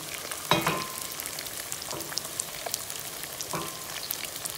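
Ground beef with freshly added diced carrot and onion sizzling and crackling as it fries in a pan. A wooden spatula scrapes and stirs through it a few times.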